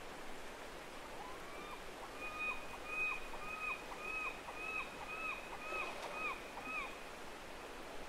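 A gull calling about ten times in a row, roughly two arched notes a second, over the steady rush of a shallow river.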